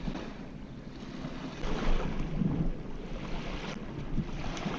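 Wind gusting against the microphone over small waves lapping at the water's edge, swelling loudest about two seconds in.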